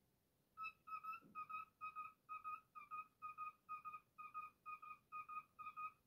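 Male cockatiel whistling a run of short, clear notes, all on the same pitch, about two a second, starting about half a second in.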